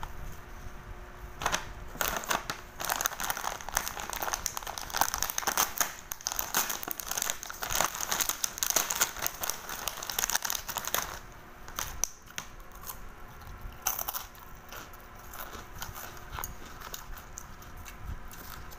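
Crinkling and rustling of wrapping being handled close to the microphone, a dense run of crackles from about two seconds in, thinning out after about eleven seconds.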